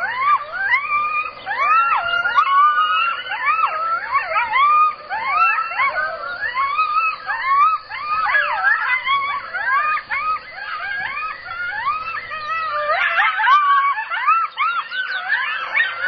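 A pack of coyotes howling and yipping together: many short, wavering calls overlap continuously, each quickly rising and falling in pitch.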